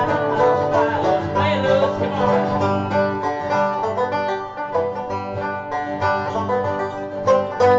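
Acoustic guitar and banjo playing a bluegrass tune together.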